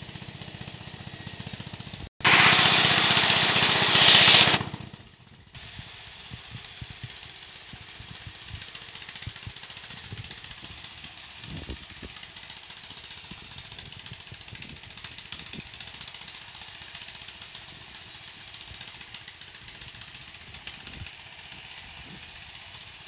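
Band sawmill running steadily. A loud, harsh burst of noise lasting about two seconds comes near the start, and occasional knocks follow.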